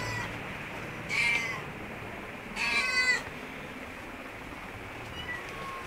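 Cats meowing: a high meow about a second in, a longer, louder meow about two and a half seconds in, and a short faint one near the end.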